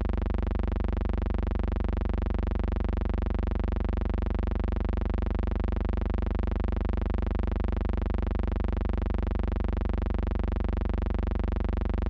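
Steady electrical hum-buzz: a low drone with many evenly spaced overtones and a faint regular flutter, unchanging throughout, with no other sound.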